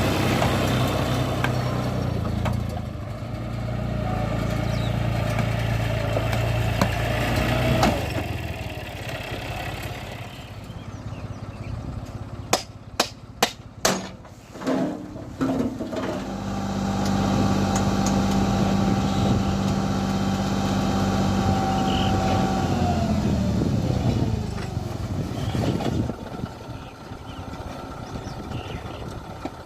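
Heavy diesel machinery running at a steady pitch, with a cluster of sharp knocks in the middle. Near the end the engine note falls away as it slows down.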